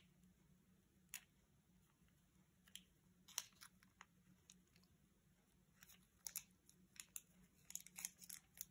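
Faint crinkling of a small plastic packet of vinegar being torn open and squeezed out into a plastic cup: scattered light crackles and clicks.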